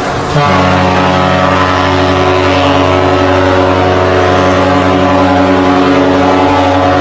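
Horn of the Great Lakes freighter SS Edmund Fitzgerald sounding one long, loud blast of several tones together, starting again after a brief dip about half a second in.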